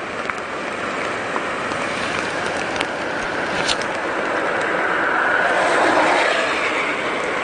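Steady rushing noise of the Takatsu River running high as a typhoon approaches, mixed with wind, swelling louder about five seconds in and easing again.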